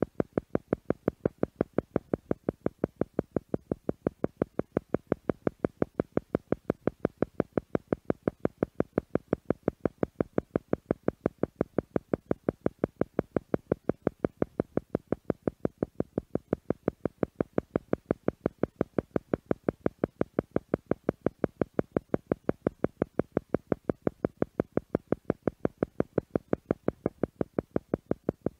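Theta-rate pulsing tone for brainwave entrainment: a buzzy tone switching on and off in rapid, even pulses, several a second, at a steady level.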